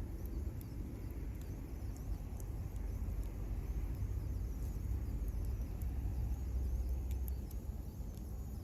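Campfire burning with scattered small crackles and snaps, over a steady low rumble.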